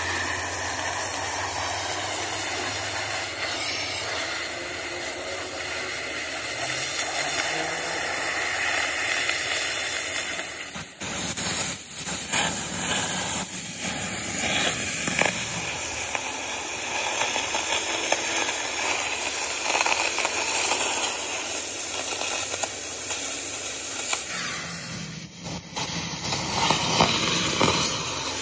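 Oxy-fuel cutting torch hissing steadily as its flame cuts through steel plate, with crackling from the sparks and molten slag.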